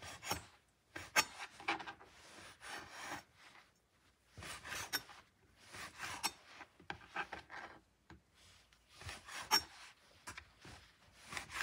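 Chef's knife sawing through slices of soft bread on a cutting board: short rasping strokes in repeated bursts, with occasional sharp taps as the blade meets the board.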